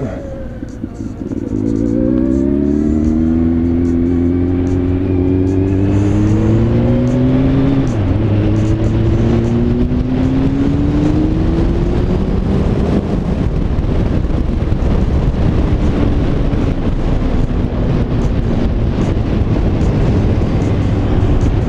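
Motorcycle engine pulling away and accelerating, its pitch rising, dropping at an upshift about eight seconds in, then rising again. After that a steady rush of wind and road noise at speed covers most of the engine.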